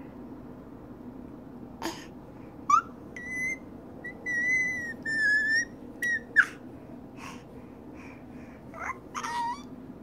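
Baby's high-pitched squeals: several held, whistle-like squeals from about two and a half to five and a half seconds in. Shorter squeals and mouth sounds follow.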